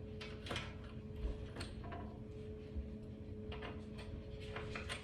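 Faint, scattered light clicks and taps from tools and hardware being handled during a wall-mount install, over a steady low hum.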